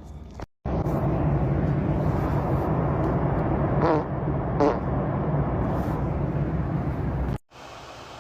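Two short, wavering farts about four seconds in, half a second apart, over a loud steady low rumble and hum; near the end the rumble cuts off to a quieter steady hum.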